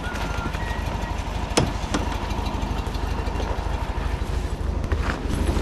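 1957 Volkswagen Beetle's air-cooled flat-four engine idling steadily, with a single sharp click about a second and a half in.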